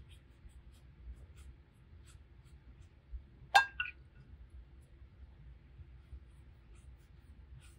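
A paintbrush knocks sharply against a glass water jar about halfway through, with a brief ringing tone and a softer second knock right after. Faint light ticks of the brush working on watercolour paper come before and after it.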